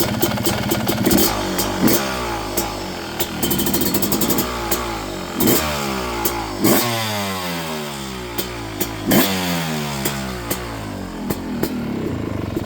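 Two-stroke dirt bike engine with an aftermarket exhaust pipe, blipped sharply several times from idle, the revs winding down after each blip before it settles back to a fast, even idle near the end.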